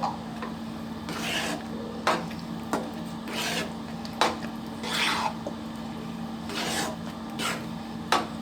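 Spatula scraping and stirring thick wheat halwa in a kadai, in uneven strokes roughly once a second with a few sharp taps against the pan.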